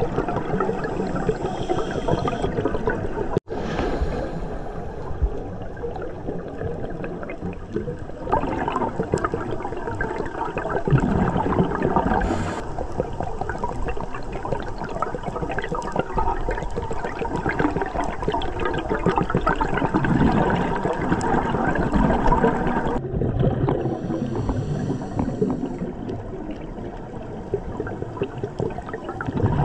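Underwater sound picked up by a dive camera: a steady, rushing water noise, with a brief dropout about three and a half seconds in.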